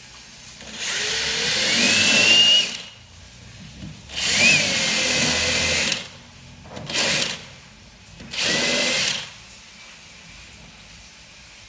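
DeWalt 20V XR cordless hammer drill, set to plain drilling, run in four bursts while boring holes into pine with a countersink bit. The motor whine rises in pitch through the first, longest burst, and the third burst is brief.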